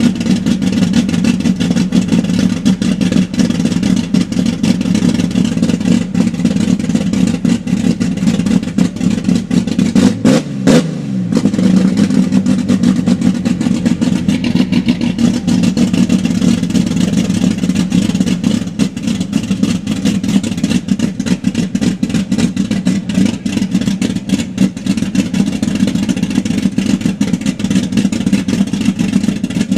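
Chevrolet Opala engine running with a steady, very loud exhaust rumble, which the owner finds too loud. There is a brief rise and fall in pitch about ten seconds in.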